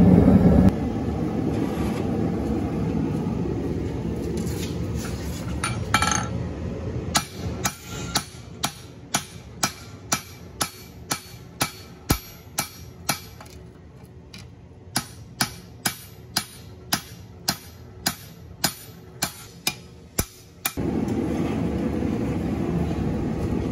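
Gas forge running with a steady rush, then a hand hammer striking a red-hot flat steel bar on an anvil, about two blows a second with a short pause midway, forging the bar's end for a scroll. The forge's rush returns near the end.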